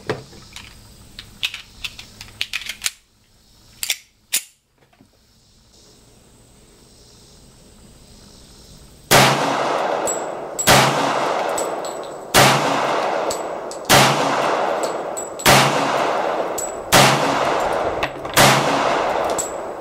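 Colt 1911 pistol in .45 ACP fired seven times at a steady pace, about one shot every second and a half, each shot trailing off in an echo. Before the string there are a few light metallic clicks of gun handling.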